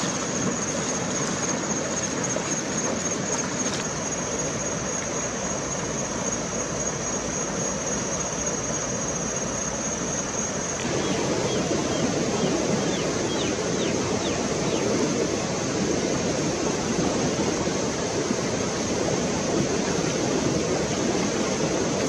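Steady rushing of a shallow river flowing over stones, with a steady high whine on top. About eleven seconds in, the whine stops and the rushing gets louder and fuller, and a few brief chirps come through.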